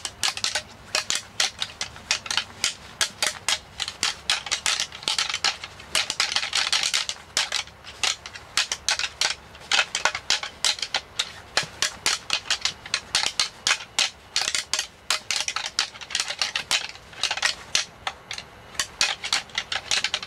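Deer rattling antlers clashed and ground together in irregular bursts of sharp clicks and clacks, imitating two whitetail bucks sparring to call a buck in during the rut.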